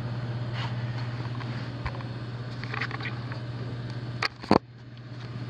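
Attic HVAC air handler running: a steady low hum under a rush of air. Two sharp knocks of handled gear come a little past four seconds in, after which the air rush is quieter.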